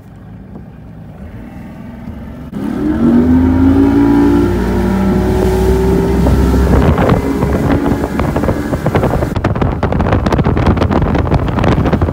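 Bass boat's outboard motor throttling up: a low rumble jumps in level about two and a half seconds in and its pitch climbs as the boat gets up to speed. Over the last few seconds wind buffets the microphone.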